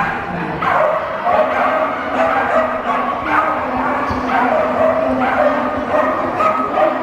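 Dog yipping and barking excitedly with high-pitched yips, one after another with hardly a break.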